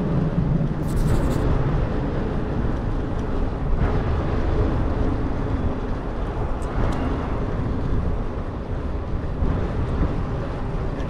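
Steady low wind rumble on the microphone and road noise from riding a bicycle along a city street, with motor traffic running alongside.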